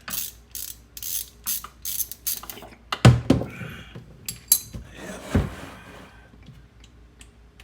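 A socket ratchet on an extension clicking in quick short strokes, about three a second, as the rear differential drain plug of a C7 Corvette is backed out. This is followed by two heavier knocks of metal tools with a lighter clink between them.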